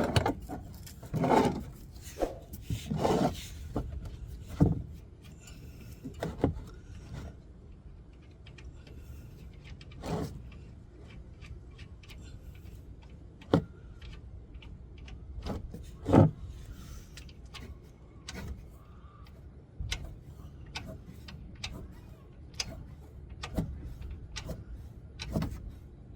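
Scattered knocks and clicks of hand tools and a drain pan being handled under a car while the engine-oil drain plug is taken out, over a low steady rumble.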